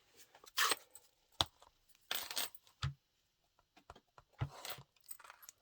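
Faint, scattered light clicks and taps, with a few short scuffs, of rubber-stamping supplies such as a stamp and an ink pad case being picked up and handled on a desk.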